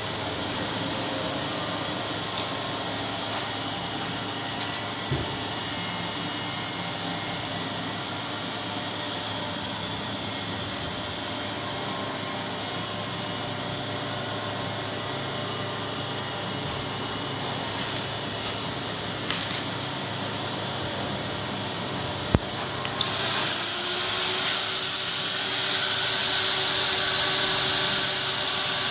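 Small electric die grinder running at speed, spinning a long flexible-shank carbide bur, with a steady whir and a few sharp clicks. About 23 seconds in the sound turns louder and harsher as the bur starts cutting into a metal casting.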